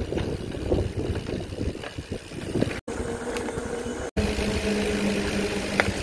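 Electric mountain bike rolling over a dirt track: tyres and frame rumbling and rattling over bumps, cut off abruptly twice. After the second break a steady motor hum runs under the riding noise.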